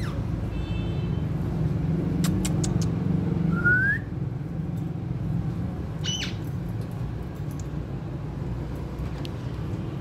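Indian ringneck (rose-ringed) parakeet giving a few short chirps, a rising whistle just before four seconds in, and a short sharp squawk about six seconds in, over a steady low background rumble.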